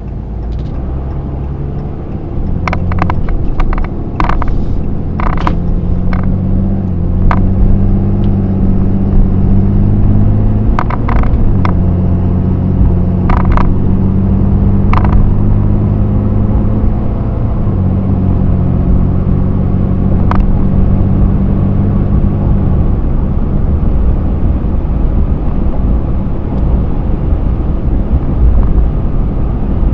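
The Ram 3500's 6.7-litre Cummins turbo-diesel inline-six pulling hard under acceleration, its note stepping to a new pitch about three times as the automatic transmission shifts up. A few short clicks or knocks are scattered through the first half.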